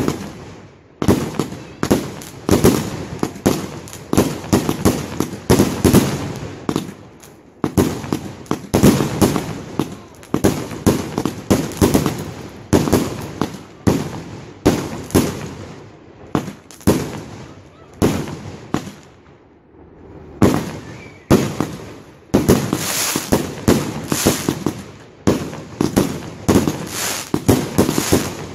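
Consumer fireworks going off in a rapid, continuous run of sharp bangs and crackles, about two a second, with a short lull about 19 seconds in.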